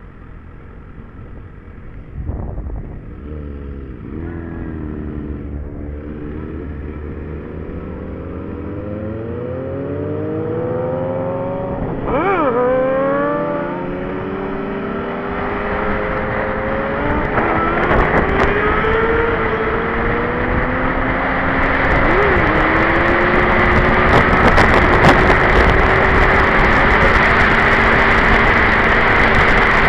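Sport motorcycle engine heard from the rider's seat, accelerating and shifting up through the gears, its note climbing and dropping back at each shift, with a clear shift about twelve seconds in. Wind noise on the helmet microphone builds in the second half as speed rises.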